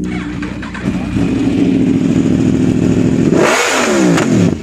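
Yamaha R1 superbike's inline-four engine running, getting louder about a second in, then revved once sharply near the end, the revs falling quickly back toward idle.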